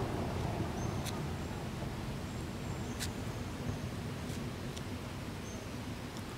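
Steady outdoor background rumble with a few short, high chirps and ticks scattered through it.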